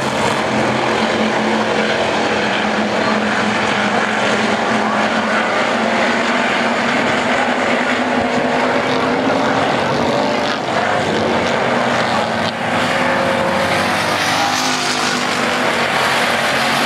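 A pack of IMCA Hobby Stock dirt-track race cars at racing speed, their V8 engines running hard together in a loud, steady drone, with individual engine notes rising and falling as the cars pass.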